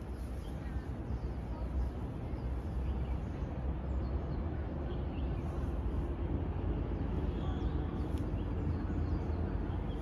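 Outdoor background ambience: a steady low rumble with faint, scattered bird chirps, and one short click near the end.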